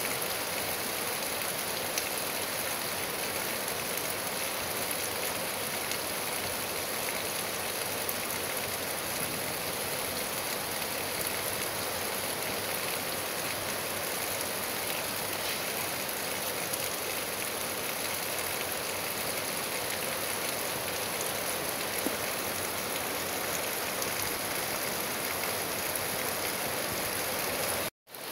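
Steady rain falling on trees and grass: an even hiss with a few louder single drips. The sound cuts out for a moment near the end.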